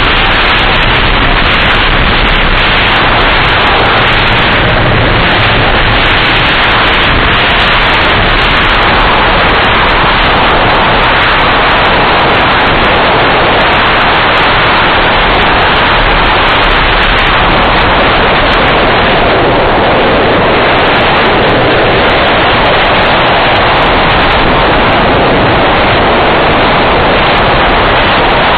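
Loud, steady rush of wind over an on-ride camera's microphone, mixed with the running noise of the Millennium Force train, an Intamin steel giga coaster, travelling the track at speed.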